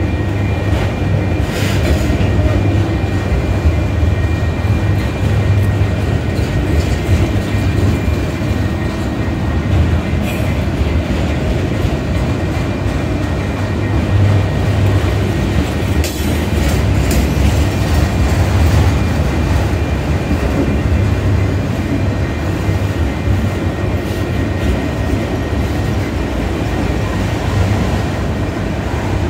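Autorack freight cars rolling past close by: a steady rumble of steel wheels on rail with a rhythmic clickety-clack and a few sharper clanks along the way.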